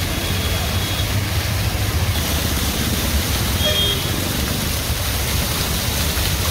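A ring of fountain jets falls into a shallow basin, a steady hiss of splashing water that grows louder about two seconds in, over a low rumble of nearby road traffic.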